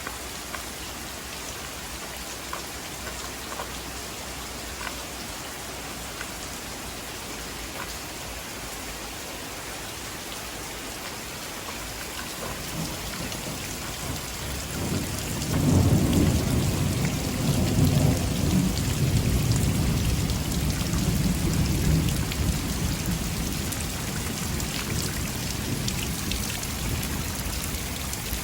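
Steady heavy rain falling, with a long roll of thunder that swells about halfway through, rumbles for several seconds and slowly dies away under the rain.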